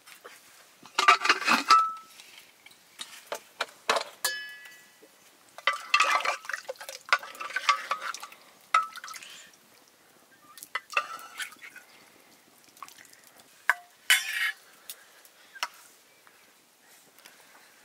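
Metal kitchenware clinking and scraping in irregular bursts, with one short ringing note about four seconds in.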